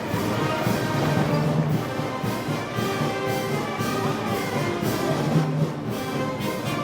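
Festival brass band music: brass instruments playing held melodic notes over a steady percussion beat, the kind of band music played for Moros y Cristianos parades.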